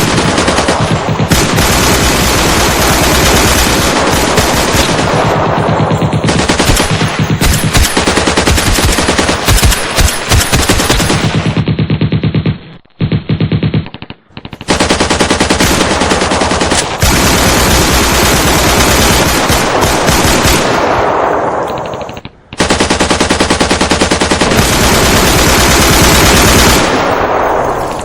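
Machine-gun firefight: long bursts of rapid automatic gunfire, breaking off for a moment about halfway through and again briefly later before resuming.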